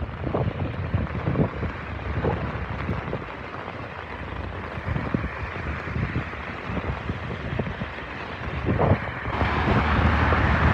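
Wind buffeting the microphone in irregular gusts over a steady hiss of rain and traffic on the wet road. About nine seconds in, a car comes by close, and the hiss of its tyres on the wet tarmac grows louder.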